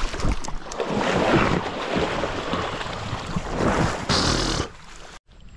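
Water splashing and churning as a hooked trout thrashes at the surface close to the angler. It cuts off abruptly near the end.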